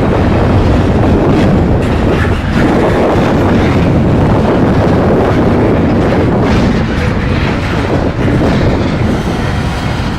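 A freight train rolling past close by, its wheels clattering over rail joints over a loud, steady rumble.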